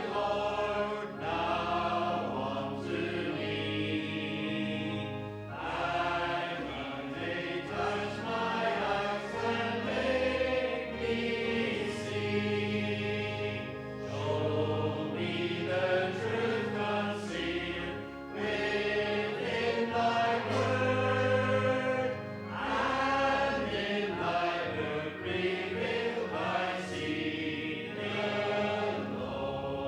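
Church congregation singing a hymn together over a steady instrumental accompaniment, in long held notes that change every second or two.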